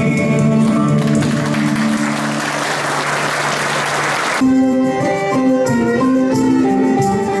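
A band's music ends on held notes as soldiers applaud, the clapping building from about a second in. About four and a half seconds in, the applause cuts off and a Cretan lyra with plucked strings starts a new traditional Greek tune.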